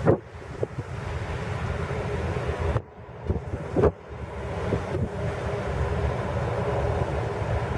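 Boeing 737 jet engines rumbling steadily as the airliner climbs away after takeoff, mixed with wind buffeting the microphone, which causes sudden pops and a brief dip in the sound about three seconds in.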